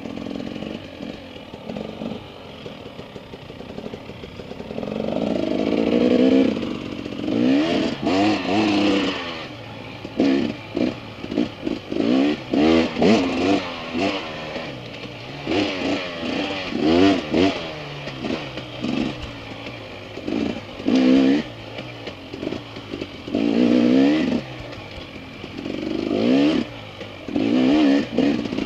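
Dirt bike engine revving on and off the throttle in quick, repeated surges, its pitch rising and falling with each burst.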